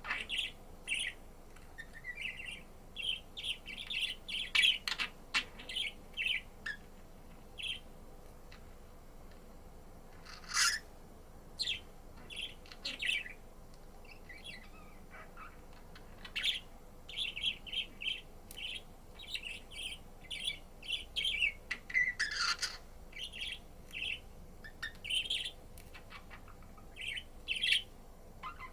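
Budgerigar chirping and warbling: bouts of rapid short chirps with a few louder, sharper calls and brief pauses between bouts.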